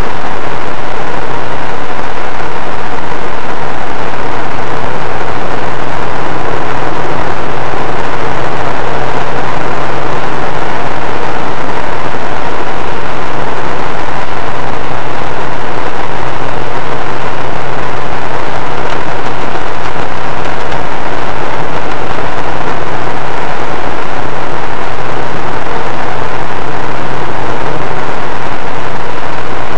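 Car cabin noise picked up by a dashcam: a steady low engine hum under loud, constant road noise.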